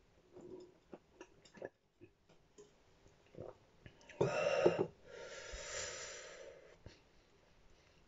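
A man breathes out hard: a loud voiced exhale about four seconds in, followed by a long hissing breath blown out through the mouth, with small mouth and swallowing clicks before it, reacting to the burn of a superhot chili.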